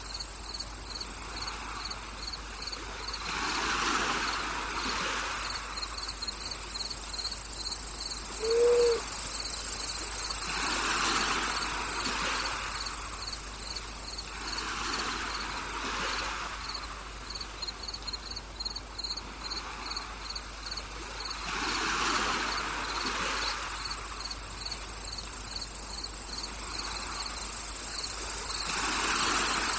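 Crickets: a steady high trill with a second, evenly pulsed chirping over it, against soft swells of noise every few seconds. One short, low call sounds about nine seconds in.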